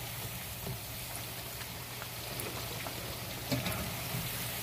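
Battered chicken pieces sizzling steadily in hot oil in a cast-iron wok, on their second fry to a deep golden brown.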